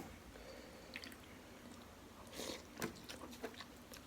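A person chewing and biting into soft meatball and beef rib close to the microphone, with faint wet mouth sounds and scattered small clicks. A brief louder slurp or smack comes about two and a half seconds in.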